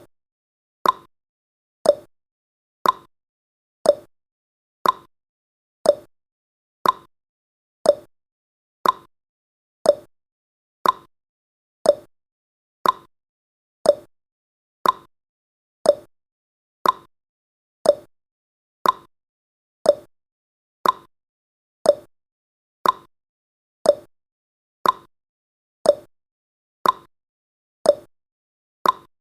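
Countdown timer's ticking sound effect: one short, sharp tick every second, evenly spaced.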